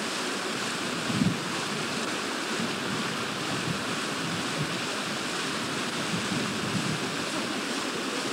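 Steady rushing noise of wind and water on the microphone, with a faint low thump about a second in.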